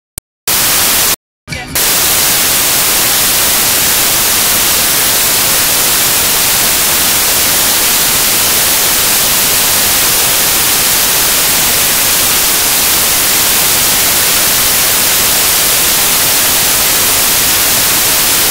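Loud, even hiss of white-noise static. It cuts out briefly about a second in, then runs on steadily.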